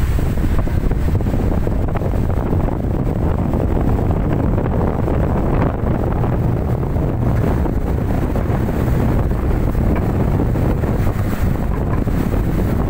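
Steady wind rushing over the microphone of a center-console speedboat running fast, with the noise of the boat's engines and water spray blended in under it.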